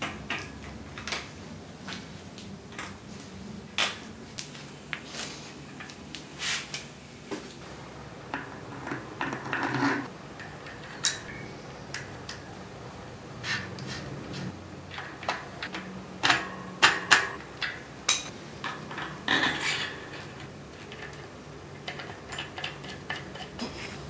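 Steel bicycle parts and hand tools clinking and tapping in irregular sharp clicks as a rear cassette and wheel are fitted. The clicks come in small bunches, the loudest a little past the middle.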